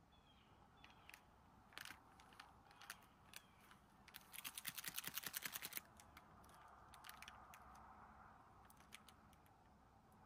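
Hand-handling sounds of camp gear in a near-silent open setting: scattered small clicks and taps, then about a second and a half of rapid, even clicking, about ten a second, starting some four seconds in.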